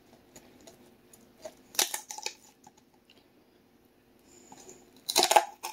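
Poultry shears crunching through the bones of a raw chicken's backbone as it is spatchcocked: two crunching snips, one about two seconds in and another near the end.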